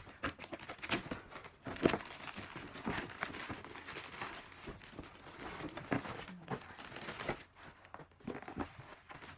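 Plastic packaging crinkling and rustling in irregular handling noises as an item is unwrapped, with a sharper crackle about two seconds in.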